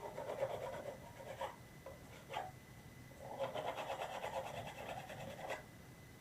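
Sandpaper rubbing over a 3D-printed plastic part in hand-sanding strokes. A stretch of rubbing, two short scrapes, then a longer rub of about two seconds that stops sharply near the end.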